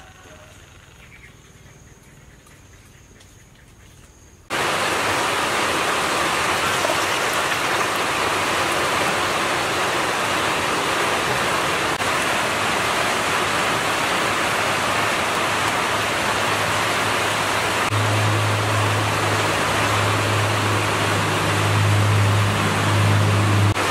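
Steady rushing of running water around peeled taro roots being washed in a metal basin, starting abruptly about four and a half seconds in after a quiet stretch. A low hum joins for the last several seconds.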